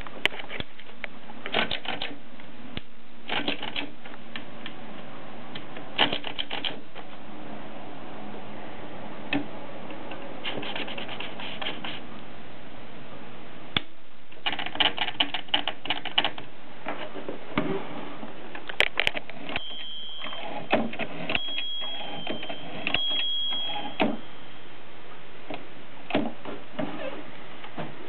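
Olympia SM3 manual typewriter being worked by hand as paper is loaded: runs of mechanical clicks and ratcheting from the carriage, platen knob and paper feed, separated by short pauses. A few brief high tones sound about two thirds of the way through.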